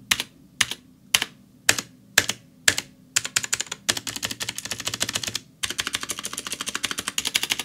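Game Power Overlord mechanical keyboard with cheap blue clicky switches being pressed: six separate key presses about half a second apart, then rapid typing clatter from about three seconds in, broken by a brief pause. The keys have a lot of spring noise, worst on Enter and Space.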